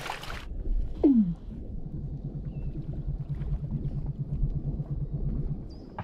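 A seal calling underwater: one falling glide about a second in, then a long, rapid train of low pulses, about eight a second, that stops shortly before the end.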